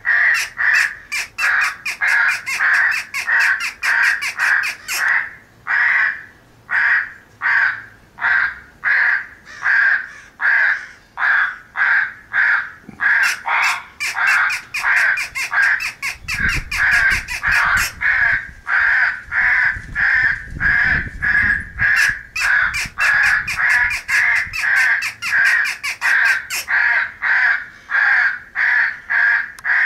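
A group of crows cawing over and over, harsh overlapping caws at about two to three a second, the excited morning and feeding calls of corvids used as a crow-calling sound. A low rumble sits under the calls for a few seconds about halfway through.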